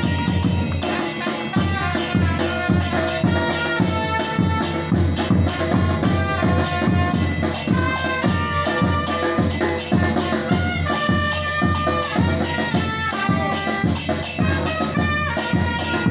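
Batucada-style percussion group playing a steady drum groove with shaker or tambourine, with a melody of held notes over it.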